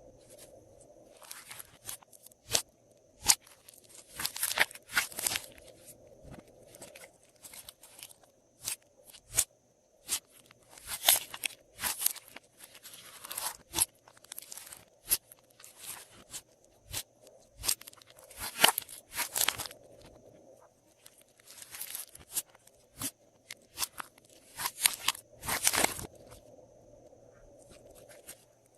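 Glossy slime being worked by hand, giving irregular runs of sticky clicks, crackles and wet pops with short quiet gaps between them.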